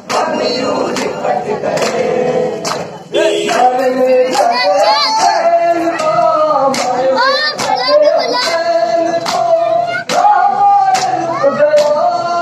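A noha (Muharram lament) sung over a microphone, a wavering, ornamented melody taken up by a group. It is punctuated by a steady rhythm of sharp slaps of matam, hands beating on chests in time. There is a brief break about three seconds in.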